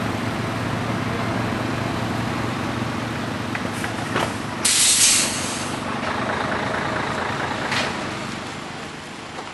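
Mobile crane's diesel engine running steadily while it holds a suspended tree aloft, with a short loud hiss of released air about halfway through and a fainter one a few seconds later. The engine eases off a little near the end.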